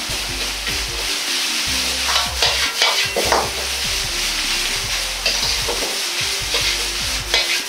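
Shredded napa cabbage and carrot sizzling in oil as they are stir-fried in a wok, with a metal ladle scraping and knocking against the wok as it tosses them. The scrapes come loudest a couple of seconds in and again near the end.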